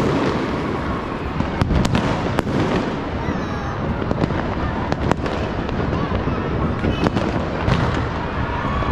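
Many fireworks and firecrackers going off across the city at once: a continuous rumble of distant bursts, with sharp, louder bangs every second or so.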